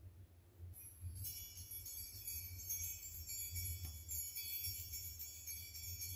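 Small bells jingling in a steady high shimmer that starts about a second in and keeps going, over a low rumble.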